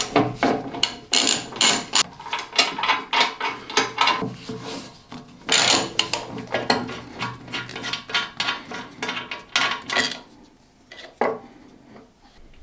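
Irregular metallic clinks, knocks and scrapes of a bolted-on part being worked loose and lifted off the cast iron table of a Sicma planer-thicknesser, dying down near the end.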